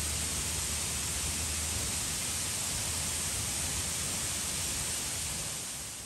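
Waterfall: a steady, even rush of falling water.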